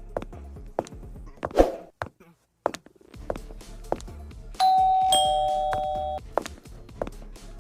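Background music with a steady low beat and scattered clicks. About four and a half seconds in, a two-note ding-dong chime sounds, high then lower, and rings out for about a second and a half.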